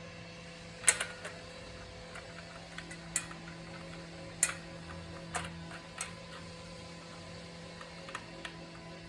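Scattered light clicks and taps of a new circular saw blade and its fittings being handled and seated on the saw's arbor, over a steady low hum.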